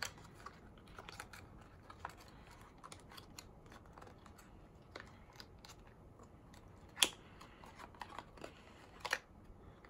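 Scattered small clicks and rustles of hands working at sealed cosmetic packaging to break it open, with a sharp click about seven seconds in and another near the end.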